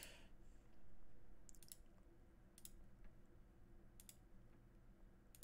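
A handful of faint computer mouse clicks, spaced irregularly over low room tone.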